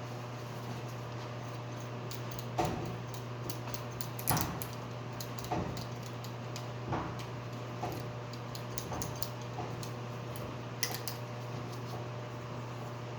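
Scattered light clinks and knocks of hard objects being handled, about eight in all and the loudest near the middle, over a steady low machine hum.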